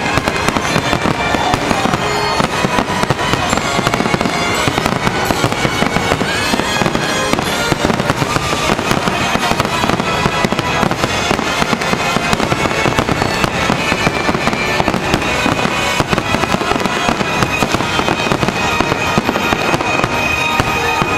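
Fireworks going off in a rapid, unbroken string of bangs and crackles, with show music playing underneath.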